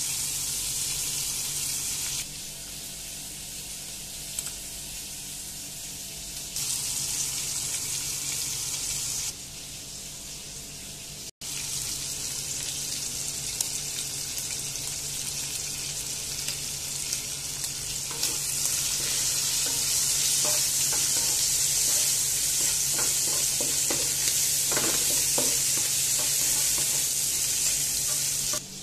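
Chicken pieces sizzling as they fry in oil in a non-stick wok, the steady hiss growing louder about two-thirds of the way through. Short scrapes and taps of a wooden spatula stirring the pan come in toward the end.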